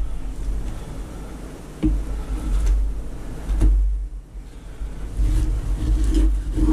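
Hands shifting and stacking slabs of raw whale blubber on cardboard, with a few soft knocks as pieces are set down, over a steady low rumble.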